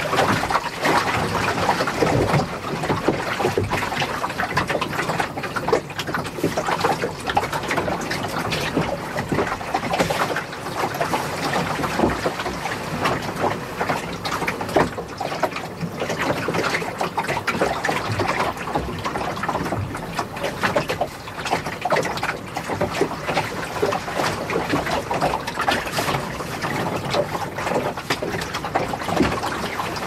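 Bow wash of a sailing dinghy under sail in high winds: water continuously splashing and slapping against the hull in quick, irregular sloshes.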